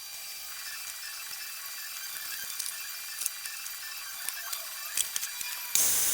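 Woodworking shop sounds: scattered small clicks and mechanical ticks over a faint high hum. Near the end a power tool's loud, steady rushing noise cuts in abruptly.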